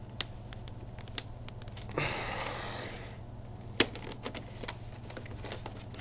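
Stiff clear plastic packaging being handled and pried open: a string of irregular sharp clicks and crackles, with a short rustling stretch about two seconds in.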